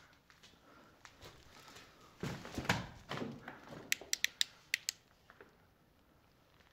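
Footsteps scuffing and crunching on a debris-strewn concrete floor, then about six sharp clicks in quick succession.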